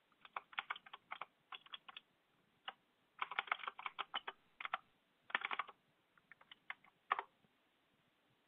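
Typing on a computer keyboard: quick, irregular runs of keystrokes with short pauses between them, which stop about a second before the end.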